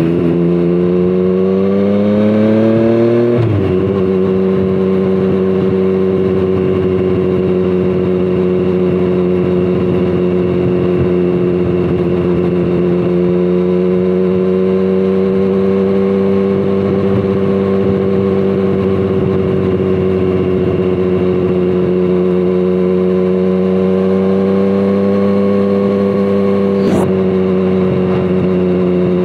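2017 Triumph Street Triple 765RS inline-three engine running through a Scorpion Serket Taper carbon exhaust under way. The engine note climbs for about three seconds and drops abruptly, then holds at near-steady revs with gentle swells. Near the end the revs rise slightly and dip sharply with a click.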